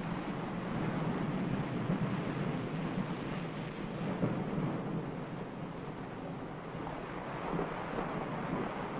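Steady rushing noise that swells slightly here and there, with no distinct strikes or tones.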